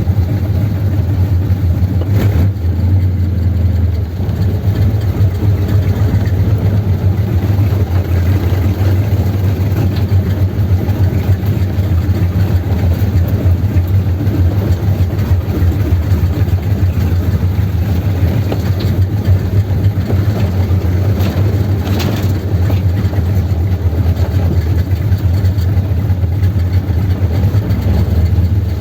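A '32 sedan hot rod's engine running steadily with a strong, deep exhaust rumble, loud throughout.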